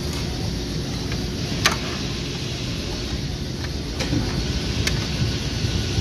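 Hands undoing parts in a car's engine bay: a few sharp plastic clicks from connectors and clips being worked loose, over a steady low background rumble.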